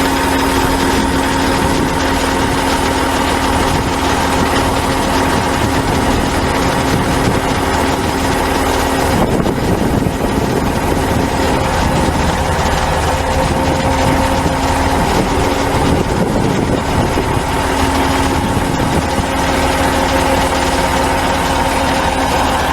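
An engine running steadily at a constant speed, with a steady hum.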